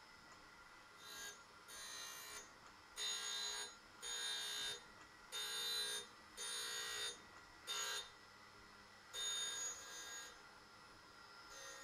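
Surface grinder wheel biting into a steel workpiece on each pass of the table, in about eight separate gritty, ringing bursts roughly a second apart, over the steady hum of the spinning wheel. These are light finishing passes taking off the last few thousandths.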